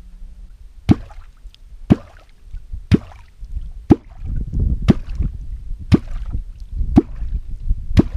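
A kvok, a simple 'svaeboy' catfish call, struck into the water about once a second, giving eight deep, sharp plops in an even rhythm. This is the sound used to call catfish up from the bottom to the bait.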